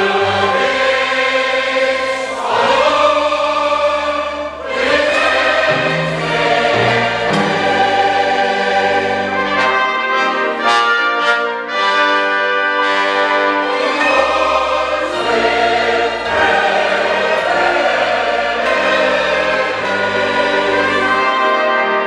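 Large choir singing with a full orchestra, brass among the instruments, in continuous sustained music with a brief run of short accented notes about halfway through.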